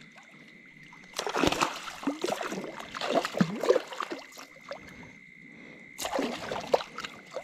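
A small Murray cod thrashing and splashing at the water's surface beside a kayak as it is drawn in on the line, in irregular splashes over several seconds, with a fresh burst of splashing near the end as a hand reaches into the water for the fish.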